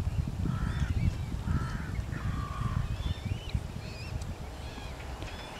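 Waterfowl calling: a run of short calls about a second apart, with higher, bending chirps over them and a low rumble underneath.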